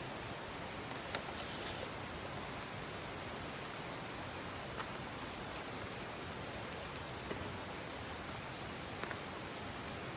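Wood campfire burning: a steady hiss with a few sharp crackles, about one every couple of seconds.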